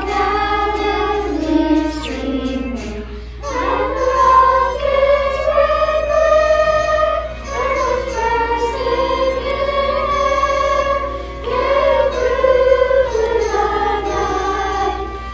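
Children's choir singing together in long held phrases, with short breaks between phrases about three seconds in and again near twelve seconds. A steady low hum runs underneath.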